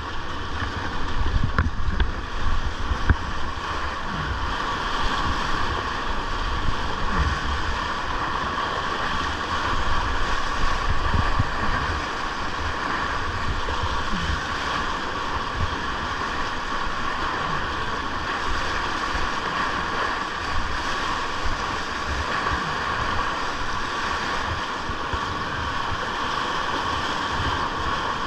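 Rushing whitewater of a river rapid, a steady hiss of moving water, with wind rumbling on the microphone.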